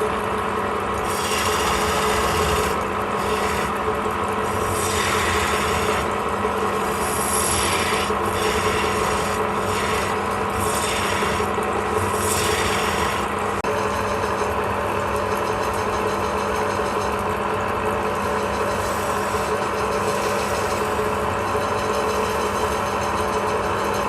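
Wood lathe running steadily while a tool scrapes against the spinning wood in a series of passes through the first half, then the lathe runs on with lighter, steadier contact.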